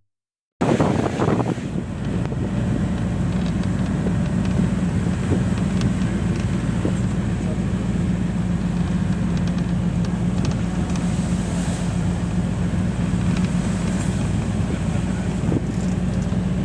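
Engine and road noise of a moving passenger vehicle heard from inside its cabin, a steady low drone with a hum, starting after a moment of silence.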